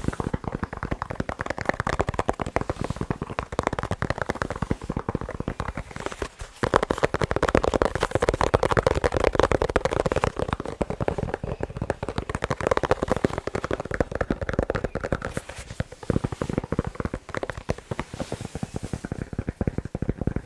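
Fast tapping on sports balls: a dense, rapid run of taps that breaks off briefly about six and a half seconds in, then goes on.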